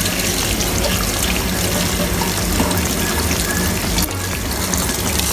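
Kitchen tap running steadily into a stainless steel sink, the stream splashing over a hand as an egg is rinsed under it.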